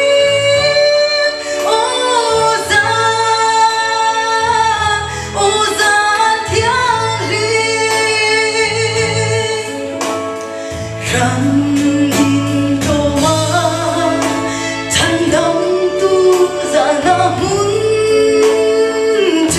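A woman singing a hymn solo through a microphone and PA over instrumental accompaniment with a steady bass line.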